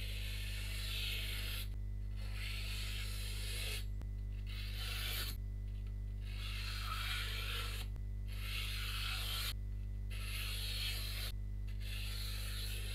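A freshly sharpened santoku knife slicing through a sheet of paper in about seven long strokes, each lasting one to two seconds, over a steady low hum. The cuts run smoothly without catching, a sharpness test showing that the chipped edge is fully repaired on the 180-grit stone.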